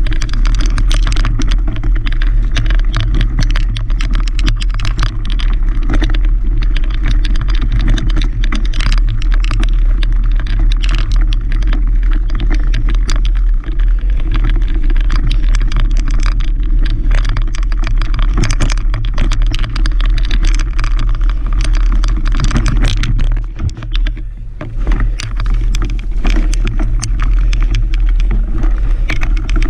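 Mountain bike riding over a dirt singletrack, heard from a mounted camera: a steady wind rumble on the microphone with tyre noise and constant rattling and clicking of the bike over roots and rocks. It eases for a moment about three-quarters of the way through.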